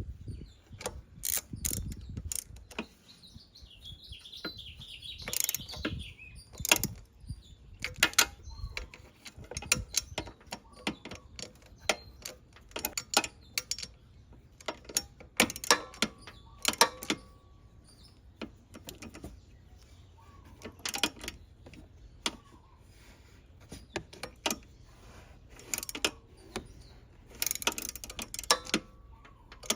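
Hand tools working on scooter brake parts: scattered metallic clicks and knocks, with a short run of rapid ratchet clicking about four to six seconds in.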